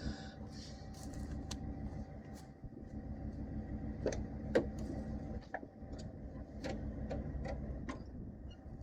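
Truck engine running at a steady idle, with a series of sharp clinks in the second half.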